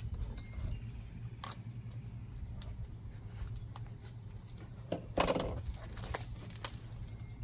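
Hands working a large strapped cardboard box open: scattered knocks, taps and scrapes on the cardboard, with a louder rustle of cardboard and packing about five seconds in, over a steady low hum.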